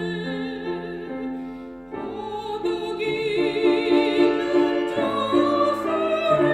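A soprano sings a Korean art song with wide vibrato over piano accompaniment. The music softens, then swells again with a new phrase about two seconds in.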